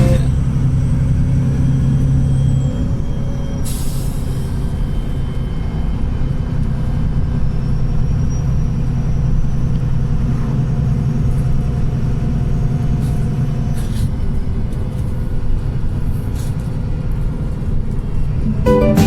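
Wright Pulsar single-deck bus heard from on board: the engine and drivetrain run steadily with a low hum, and a short hiss of air comes about four seconds in.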